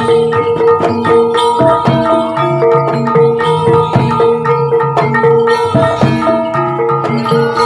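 Javanese kuda lumping gamelan accompaniment playing steadily: kendang hand-drum strokes over repeating notes on tuned metal percussion.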